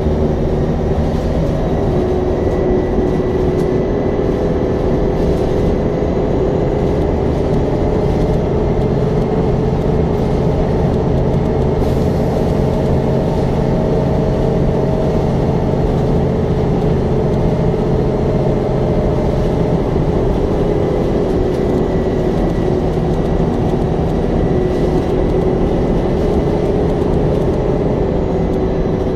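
Double-decker bus's diesel engine and road noise from the back seat of the lower deck while under way at speed: a steady drone with a few held engine tones and a faint high whine.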